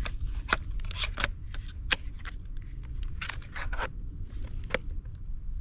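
Hands seating a 3S LiPo battery pack in an RC car's battery tray and fastening it down: a run of short scrapes and plastic clicks, over a steady low rumble.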